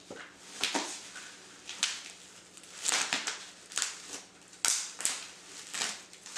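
Bubble wrap crinkling and rustling in a string of short, irregular bursts as wrapped parts are handled and pulled out of a cardboard box.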